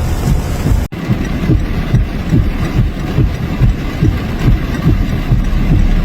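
Vehicle engine running with a low, pulsing rumble, about two or three pulses a second, broken by a brief dropout about a second in.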